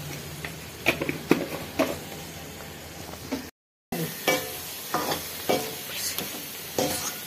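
Metal ladle stirring and scraping around a metal kadai of frying onions, vegetables and spice masala, with irregular clicks of the ladle on the pan over a steady sizzle. The just-added chili powder is being mixed into the frying masala. The sound cuts out for a moment a little past halfway.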